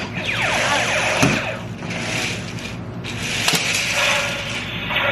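Toy laser-tag battle tanks firing, several falling electronic zap effects in a row, over the whir of their small drive motors.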